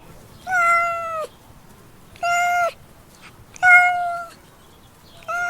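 A cat meowing four times, a little over a second apart. Each meow is a held, fairly steady call of half a second to nearly a second that drops slightly at its end, and the fourth begins near the end.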